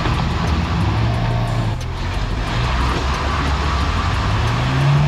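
4×4 engine revving under load during a tow recovery over rocks; the pitch rises about a second in and climbs again near the end.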